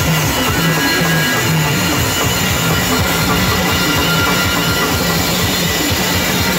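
Loud band music played through a large sound system, over a steady, heavy drum beat.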